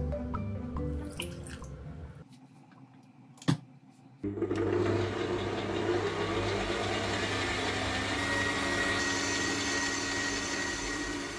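Electric stand mixer switched on about four seconds in and running steadily, its dough hook churning flour, sugar and eggs into brioche dough. A single sharp click comes just before the motor starts.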